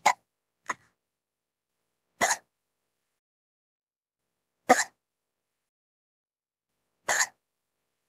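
A woman hiccuping: three sharp hiccups about two and a half seconds apart, with a fainter one near the start.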